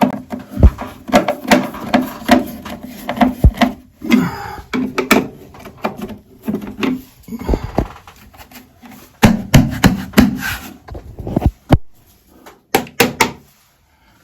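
Close handling noise: a run of knocks, clicks and rubbing, with a few short pauses.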